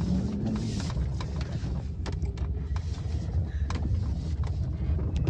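Steady low engine and road rumble inside a moving car's cabin, with scattered light rattles and knocks.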